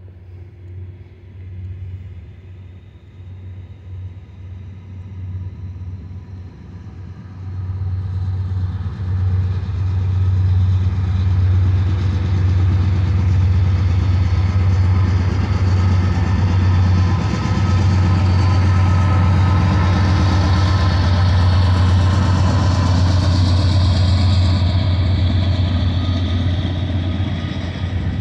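Norfolk Southern diesel locomotives on an empty coal train approaching and passing with a steady engine drone. The drone grows louder over the first ten seconds, stays loud, and eases a little near the end as the empty coal hoppers roll by.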